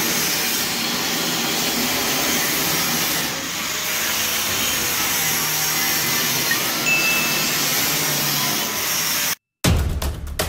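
A power tool running steadily as a loud, even hiss, cutting off abruptly about nine seconds in. Music with heavy thumping beats starts just after.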